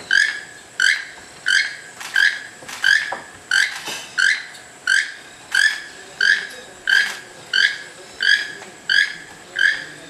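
Keel-billed toucan calling: one short call repeated at a steady, even pace, about three every two seconds.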